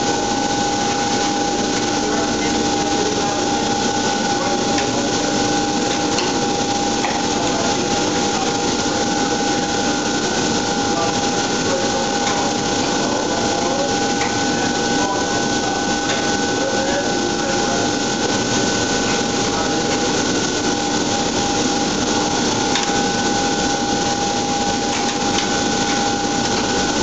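Steady hum and hiss of a 1960s elevator relay controller with its transformers in operation, several steady pitched tones held throughout. A few faint relay clicks are scattered through it.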